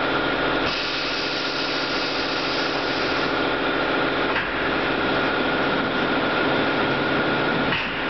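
SAGER SG-3000-1DD glass laminating machine running with a steady mechanical hum and a constant high whine.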